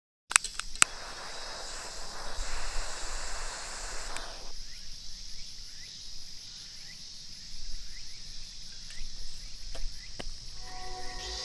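Steady high-pitched insect drone in woodland, with two sharp clicks just after the start and a soft rushing noise that cuts off about four and a half seconds in. A few faint taps come near the end as a mosquito coil is set into its metal holder.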